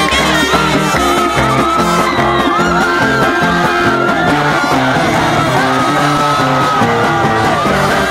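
Loud upbeat band music with a lead singer over a steady stepping bass line.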